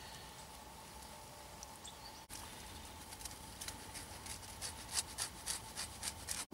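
Faint steady hum, then after about two seconds a quick run of light clicks and taps from food preparation, getting busier toward the end.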